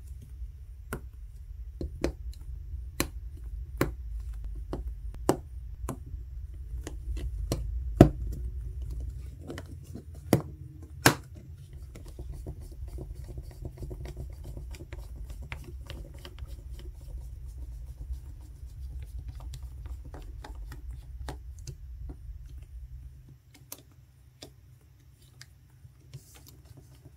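Small, sharp clicks and taps of hands reassembling a Samsung Galaxy S20. Flex-cable connectors snap onto their board sockets and a small screwdriver drives the internal screws. A low steady hum runs underneath and stops about two-thirds of the way through.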